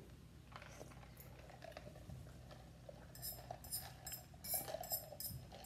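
Faint, light clinks of eating utensils against a bowl, a quick run of them in the second half.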